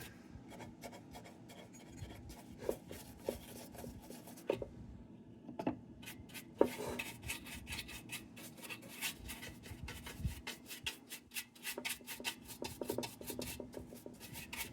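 Rubbing and light scraping of hand work on a steel lantern as a boiled-linseed-oil treatment is worked over it, with many quick small ticks that come thicker in the second half.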